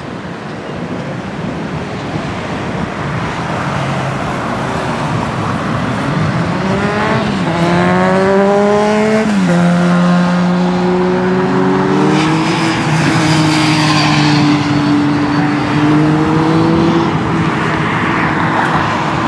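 Jet noise from an F-35's single Pratt & Whitney F135 afterburning turbofan during a flypast. A rising whine drops sharply in pitch about nine seconds in as the jet goes by, and loud, steadier engine noise follows, easing slightly near the end.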